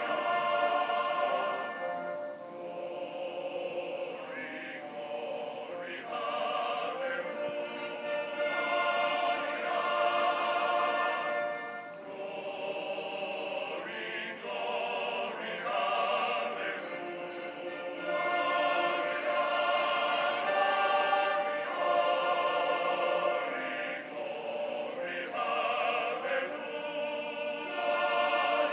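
Background music: a choir singing in an operatic style, sustained voices in long phrases that swell and ease off every few seconds.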